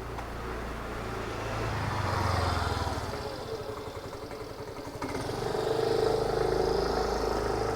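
Two motor vehicles passing on a street one after the other, the engine sound swelling and fading about two seconds in and again about six seconds in.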